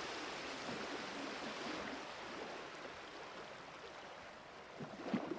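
Steady hiss of cockpit noise in the ultralight, slowly fading, with a few faint knocks near the end.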